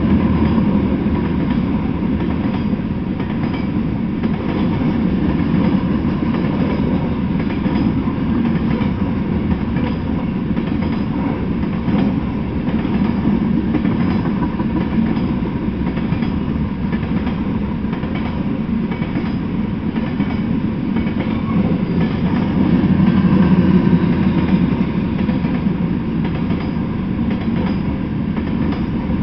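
Freight train of Norfolk Southern covered hopper cars rolling past: steady noise of steel wheels on the rails, a little louder near the end.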